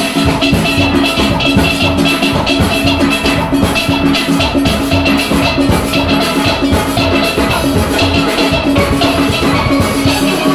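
Steel orchestra playing live: many steel pans sounding together over a steady beat.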